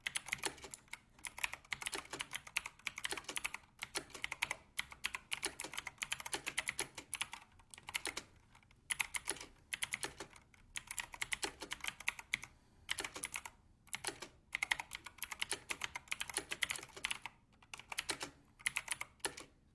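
Typing on a Razer BlackWidow V3 Pro mechanical keyboard with Razer Green tactile, clicky switches: fast runs of loud, crisp key clicks with short pauses between bursts.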